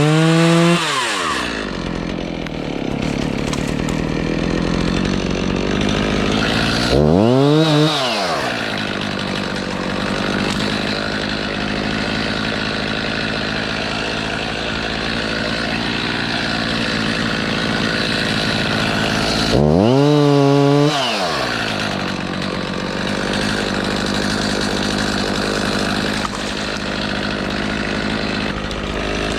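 Gasoline chainsaw running steadily, its throttle revved up to a high whine and back down three times: at the start, about seven seconds in, and about twenty seconds in.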